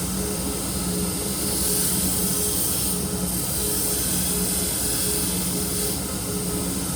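Chef's knife blade being ground on a powered grinder: a steady motor hum under a grinding hiss that swells in the middle and eases off.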